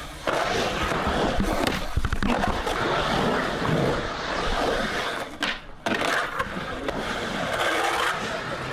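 Skateboard wheels rolling and carving over the concrete of an empty pool bowl: a steady rolling noise broken by a few sharp knocks from the board.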